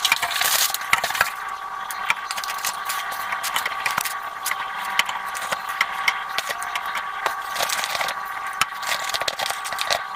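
Small knocks, rattles and rustling from groceries and containers being handled and packed into a refrigerator, with a faint steady tone underneath.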